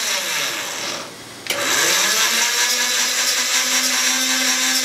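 Electric motor of a homemade tube-slotting milling machine whining. It winds down to a near stop about a second in, switches back on half a second later with a rising whine, and then runs steadily.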